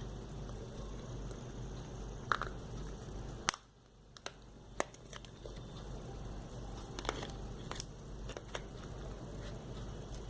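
Scattered sharp clicks and light handling noise from a BlackBerry phone being handled to switch it on, over a steady low hum.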